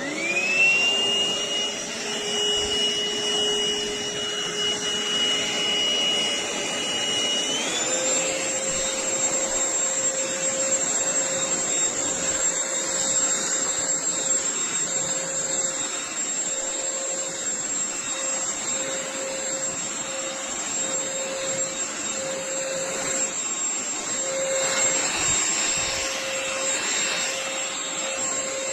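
Akitas V8 cordless stick vacuum switched on, its motor spinning up to a steady whine over airflow hiss. About seven seconds in the pitch steps up to a higher whine, and it runs on steadily at that speed.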